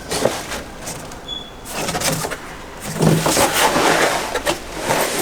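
Packaging and items being handled: a few clicks, then a dense crackling rustle that grows louder about three seconds in.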